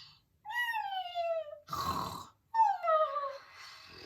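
A woman imitating snoring with her voice: a falling whistle-like exhale, a short rasping snort of an inhale, then a second falling whistled exhale.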